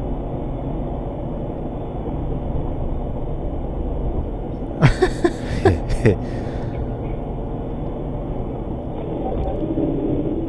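Steady engine and road rumble inside an armoured truck's cab, as picked up by its dashcam. About five seconds in, a few short bursts of laughter break over it.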